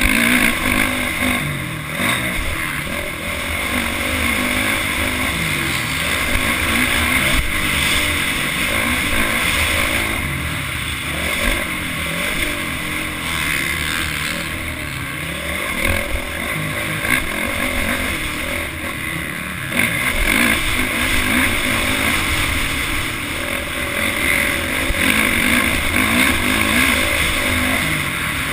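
Motocross bike engine revving up and down repeatedly as it is ridden hard round a dirt track, heard close up from a camera on the bike.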